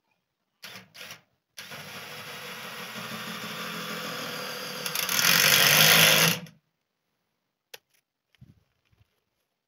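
Cordless drill working into corrugated iron sheeting on a timber frame: two short blips, then a steady run of about five seconds that gets louder near the end before it stops.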